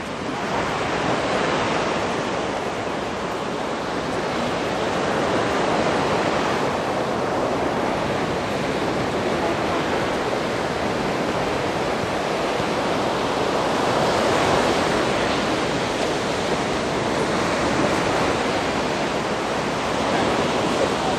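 Surf washing onto a sandy beach: a steady hiss that swells gently and eases every several seconds.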